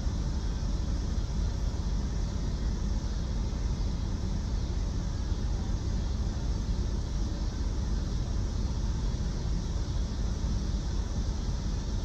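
Car engine idling, a steady low rumble heard from inside the parked car's cabin.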